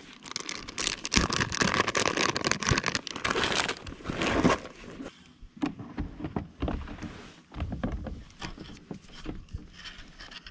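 Rustling and crinkling of plastic bait packets and a tackle bag being rummaged through, then scattered light handling knocks and clicks for the rest of the time.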